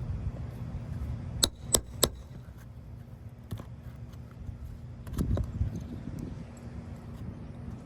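Hand tools working on an asphalt shingle during a roof repair, with a damaged shingle being removed: three sharp metallic clicks about a third of a second apart, then a short scraping rustle a few seconds later, over a steady low hum.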